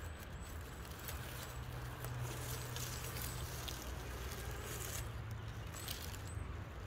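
Absima Sherpa RC crawler's electric drivetrain whirring steadily as it crawls slowly over the forest floor. Dry leaves and twigs crackle and click under its Proline Hyrax tyres.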